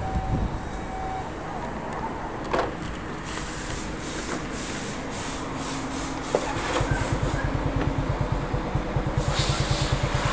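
Rubbing and handling noises with a sharp click, then about six seconds in a Honda underbone motorcycle's single-cylinder engine starts and idles with an even, rapid putter.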